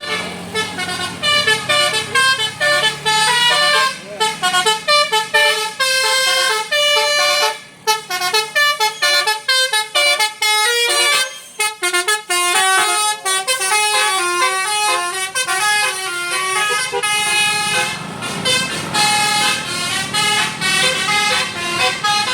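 Indonesian bus 'telolet basuri' multi-tone horn playing a fast melody of short stepping notes, with the bus engine humming underneath near the start and again near the end.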